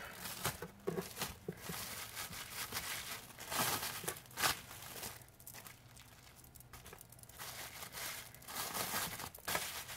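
Cellophane plastic wrap crinkling and rustling in irregular crackles as hands gather it around a ball of soft cheese paste and press it into shape. It is busiest about four seconds in, eases off for a couple of seconds, then picks up again near the end.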